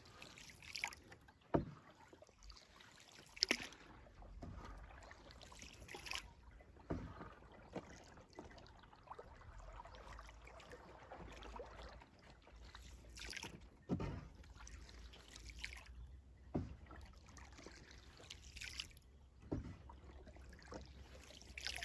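Faint sounds of a small boat on water: occasional splashes and light knocks a few seconds apart over a low rumble.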